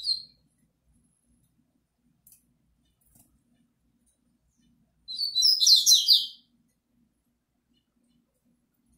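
Caged double-collared seedeater (coleiro) singing: a single short high note at the start, then about five seconds in a quick burst of rapid, high, twittering song notes lasting just over a second.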